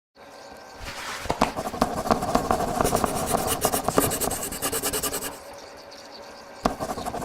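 Rapid clattering and rubbing of hard objects being handled, a dense run of clicks lasting about four seconds, then a short second bout near the end.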